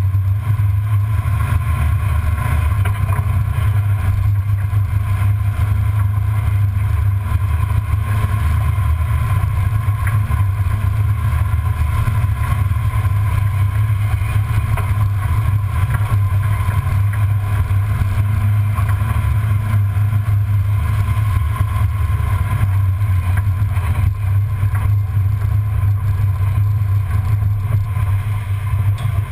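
1994 Ford Bronco driving slowly over a dirt trail, heard from under the chassis beside the front suspension: a steady low rumble of engine and drivetrain.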